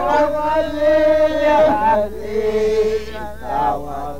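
Voices chanting in long held notes, with a short break about three seconds in.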